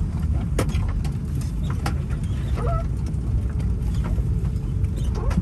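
Steady low cabin rumble inside an Airbus A330-300 taxiing in after landing, with a few sharp clicks scattered through it.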